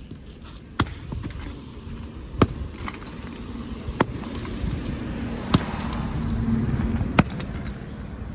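Sledgehammer blows striking a brick and cement wall during demolition: five sharp strikes at a steady pace, about one every second and a half. A low background rumble swells in the middle.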